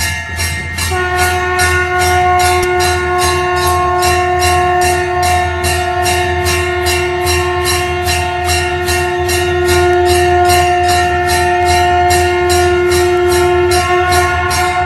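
A temple bell rung rapidly and evenly, about three strokes a second, while a conch shell (shankh) is blown in one long held note that starts about a second in and breaks off near the end.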